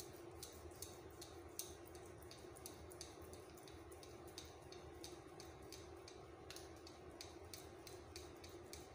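Faint, irregular small clicks and sticky ticks of a knife slicing raw chicken breast into thin sheets on a plastic cutting board, over a steady low hum.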